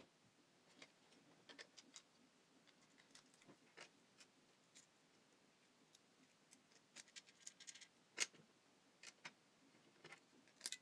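Faint, irregular clicks and taps of 3D-printed plastic clamp parts being handled and pressed together, with a louder click about eight seconds in and another near the end.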